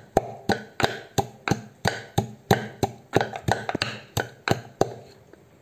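Wooden pestle pounding dry herbal pieces to powder in a wooden mortar: steady knocks about three a second, stopping shortly before the end.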